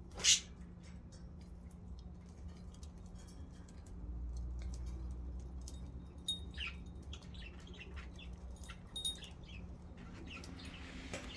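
Budgerigars chirping: one loud, sharp call right at the start, then a run of short, quick chirps in the second half.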